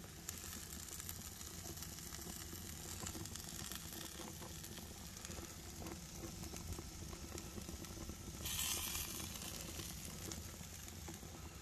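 Burger patties sizzling on a hot grill, a steady hiss of fat and juice cooking over the flames, which swells briefly into a louder burst about eight and a half seconds in.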